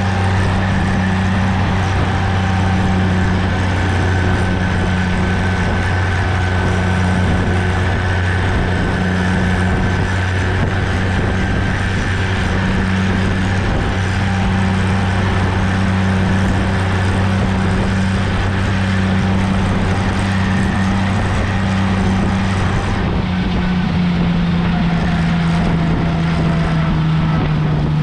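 Farm tractor engine running steadily at road speed, heard from the tractor, with some wind on the microphone. The engine's pitch drops a little near the end as it slows.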